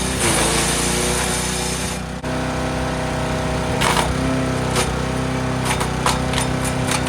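Forest Master FM8DD wood chipper's small petrol engine running steadily while branches are fed through, the blades cracking and crunching the wood several times.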